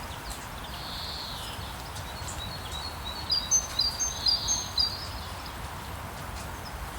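Steady hiss of falling rain with birds singing over it: one call about a second in, then a run of quick, high chirps between about three and five seconds in.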